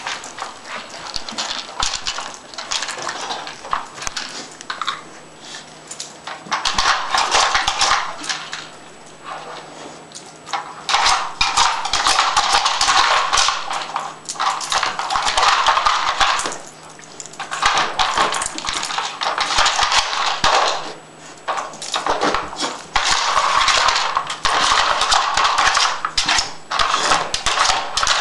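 Plastic Dog Tornado puzzle feeder clattering and scraping as a mastiff puppy works its spinning tiers: sharp clacks throughout, with stretches of a few seconds of continuous rattling and grinding broken by short pauses.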